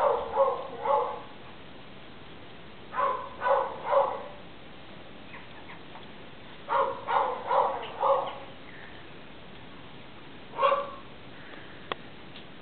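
A dog next door barking in short runs of three or four barks every few seconds, with a single bark near the end.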